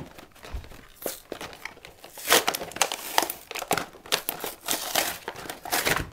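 Plastic blister pack and its cardboard backing crinkling and tearing as the package is ripped open by hand: a run of irregular crackles, loudest about two and a half seconds in.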